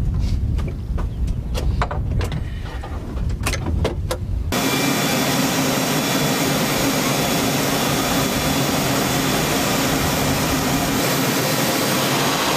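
A low rumble with a few clicks and knocks, then, after a sudden cut about four and a half seconds in, the steady hiss and whine of the AH-64D Apache's turbine power running on the ground.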